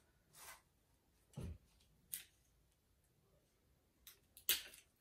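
Faint handling of craft materials: tissue paper rustling a few times and a low knock on the table, then two short, sharp rips near the end as a piece of clear tape is torn off for taping a strip around a cardboard toilet paper roll.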